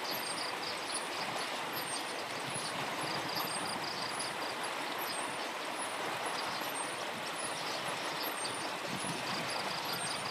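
Outdoor ambience: a steady rushing background noise with small high chirps repeating over it every second or so.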